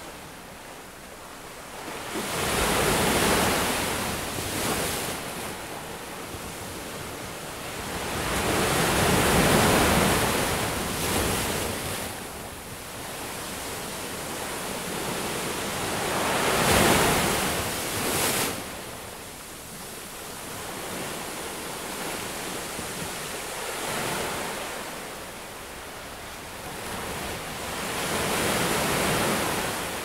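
Ocean waves breaking and washing up a beach: five swells of surf rise and fall over a steady hiss, each some six seconds apart, the sharpest about halfway through.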